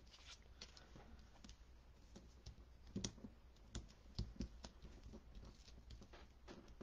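Faint scattered clicks and light taps of fingers handling cardstock and foam adhesive dimensionals on a tabletop. The clicks are irregular and a little louder between about three and four and a half seconds in.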